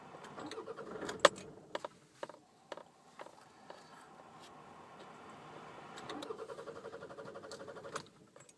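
Attempts to start a compact SUV that won't start: a fast rattling buzz from the starter, once for about a second and again for about two seconds near the end, with sharp clicks and key sounds in between. The engine does not catch.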